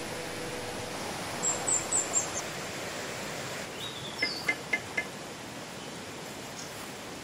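Small birds chirping over a steady outdoor hiss. A run of four short high chirps comes about a second and a half in, then a couple of sliding notes and four quick, evenly spaced pips near the middle.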